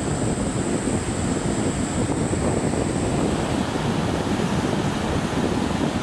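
Steady wash of surf with wind buffeting the microphone, a dense low rushing noise with no bird calls. A thin high steady whine sits above it and stops about halfway through.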